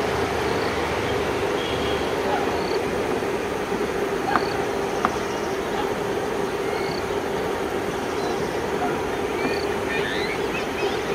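Twin ALCO WDM-3A diesel-electric locomotives pulling a passenger train away from a station, their turbocharged 16-cylinder engines running with a steady drone. Two sharp clicks come near the middle, and short high chirps repeat about every second and a half.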